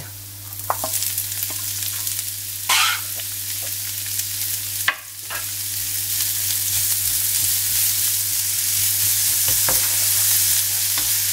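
Minced garlic sizzling in olive oil in a nonstick frying pan. Diced onion is added, with a brief louder rush about three seconds in and a sharp knock about five seconds in. After that the sizzle grows louder while a wooden spatula stirs the onion through the oil with light scraping clicks, over a low steady hum.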